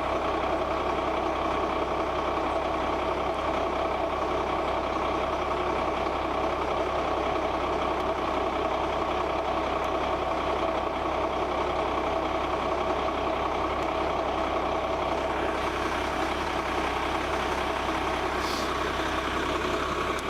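Motorhome engine idling steadily.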